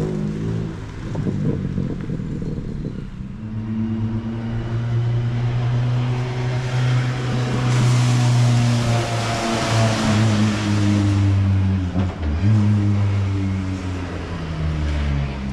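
Rallycross car's engine running at steady high revs during wet-surface start practice, its pitch shifting in small steps, with a louder rushing noise swelling in about halfway through and falling away a few seconds later.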